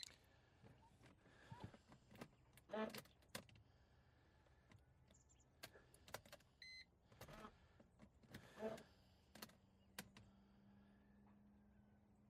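Near silence, broken by scattered faint clicks and light rattles of small parts being handled, with a few brief louder knocks. A faint steady hum sets in about two thirds of the way through.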